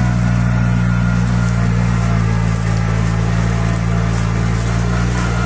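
Kubota 2741 tractor's diesel engine running steadily under load as it pulls a disc ridger earthing up moist soil, holding its speed without bogging down, with the rough scraping of the discs through the soil over it.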